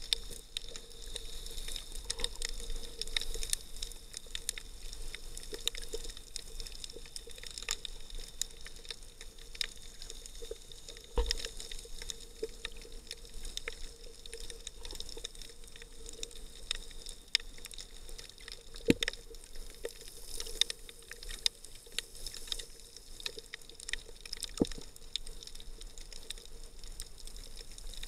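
Underwater sound picked up by an action camera sealed in its waterproof housing: a muffled water hiss with scattered sharp clicks and crackles, and a few louder knocks.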